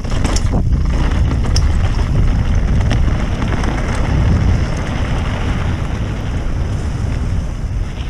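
Wind buffeting the helmet-camera microphone as a mountain bike rolls fast down a dirt singletrack, with the tyres' rolling noise on the dirt and a few short clicks and rattles from the bike.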